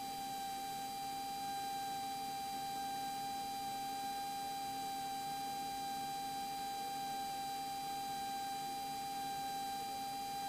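A steady high-pitched electrical whine at one pitch, with faint overtones, over a low even hiss, in the cockpit audio of a 1982 Cessna 182RG in flight.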